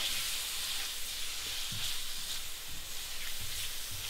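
Stir-fry of chicken, bacon, water chestnuts and peppers sizzling in hot oil in a pan: a steady hiss, with a few faint knocks now and then.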